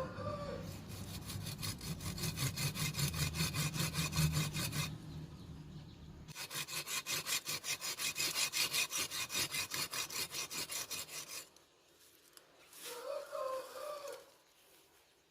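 A saw cutting wood of a kimeng bonsai, in two runs of quick back-and-forth strokes at about five a second. It stops about two seconds before the end. A short bird call comes near the end.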